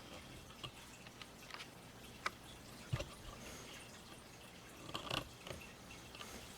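Faint, scattered clicks and small knocks of hands handling a desktop computer's case and parts during disassembly, several single taps and a short cluster of them near the end.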